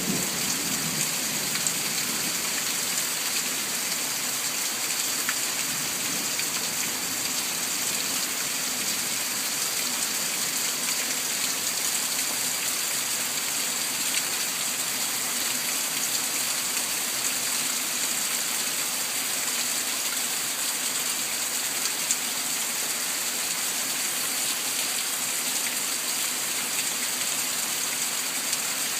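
Steady heavy rain falling during a thunderstorm, an even hiss of rain on surfaces.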